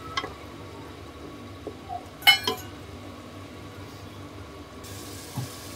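Spatula stirring minced meat frying in an aluminium pressure cooker: a low steady sizzle with a few light scrapes and taps on the pot, and one sharp metallic clink a little past two seconds in as the spatula strikes the rim or side.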